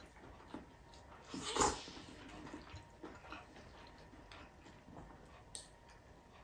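Faint close-up eating sounds: a person chewing and smacking while tearing meat apart by hand, with small scattered clicks. A louder single smack comes about a second and a half in, and a sharp click comes near the end.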